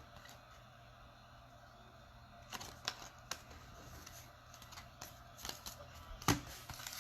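Trading cards being handled and flipped through by hand, with a few sharp clicks and ticks of card against card starting about two and a half seconds in.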